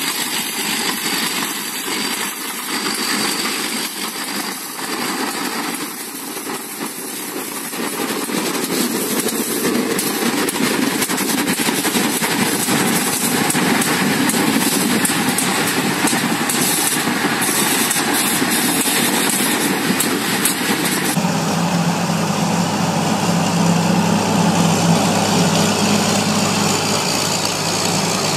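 Engines of small crawler tractors running as they work a wet rice paddy. The sound changes abruptly about three quarters of the way through, from a noisy engine to a steadier low hum.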